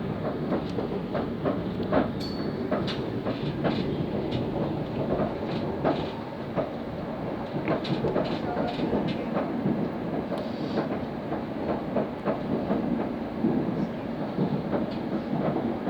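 London Overground electric train running, heard from inside the carriage: a steady rumble of wheels and running gear with irregular sharp clicks and knocks from the wheels on the track.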